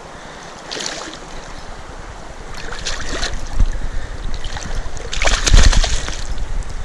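Large wild brown trout thrashing in shallow creek water, wrapped in fishing line: a few short splashes, the biggest near the end, over the steady sound of the flowing stream.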